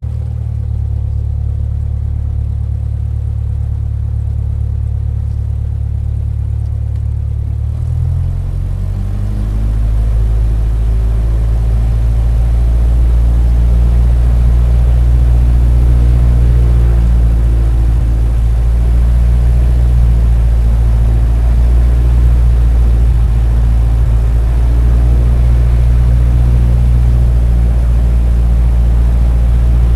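Aircraft engine starting up: a low steady hum, then about eight seconds in the pitch shifts and the sound grows louder, settling into a steady low-pitched run.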